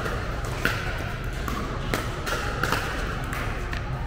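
Rapid exchange of pickleball shots: sharp pops of paddles striking the hollow plastic ball, about seven hits at uneven spacing, each ringing briefly in the hall, over a steady low hum.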